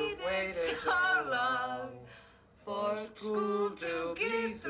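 Male and female voices singing, with a short break about two seconds in.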